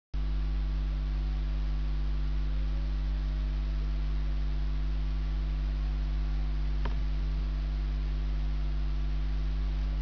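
Steady electrical mains hum with a faint hiss, constant in level, and one brief click about seven seconds in.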